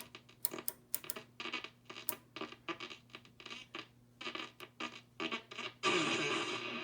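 Loudspeaker of a 1936 RCA ACR-111 valve radio receiver giving out scratchy crackles over a steady low hum. About six seconds in comes a louder rush of distorted station sound. A very strong local station is overloading the receiver, which the owner puts down to the AGC circuit not working properly.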